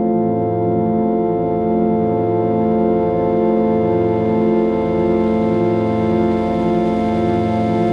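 Steady, organ-like synthesized drone built around a 741 Hz solfeggio tone, many tones held together without a break. Its low notes pulse slowly, about once a second.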